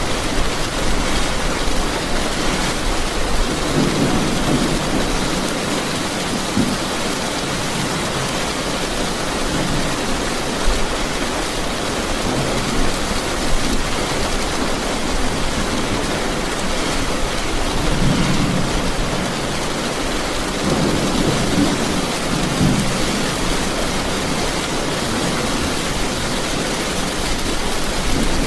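Steady rain falling, a dense even hiss, with low rumbles swelling up a few times.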